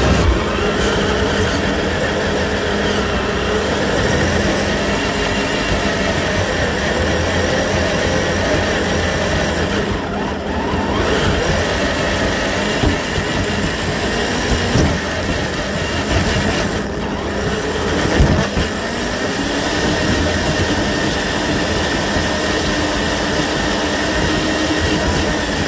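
Traxxas TRX-4 RC rock crawler driving, its electric motor and geared drivetrain whining steadily. The pitch drifts up and down with the throttle.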